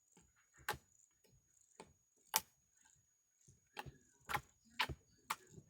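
Glossy slime being squeezed and played with by hand, giving a faint, irregular series of sharp clicks and pops.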